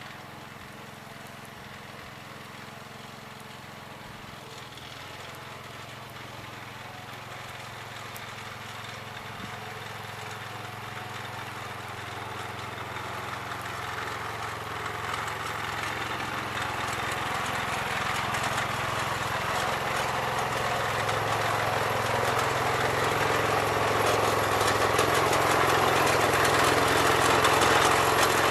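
Gravely 408 garden tractor's engine running steadily, growing gradually louder throughout.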